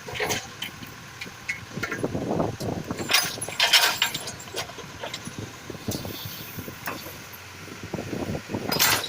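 Excavator loading soil into a dump truck: irregular knocks and clatter, with two hissing bursts, one about three seconds in and one near the end.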